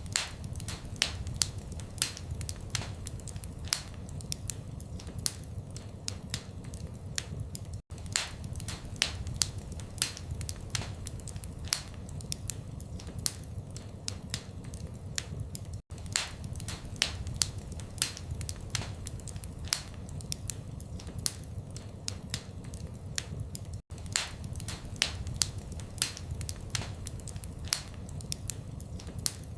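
Wood fire in a fireplace burning with frequent sharp, irregular crackles and pops over a low steady rumble of flame. Brief dropouts in the sound come about every eight seconds.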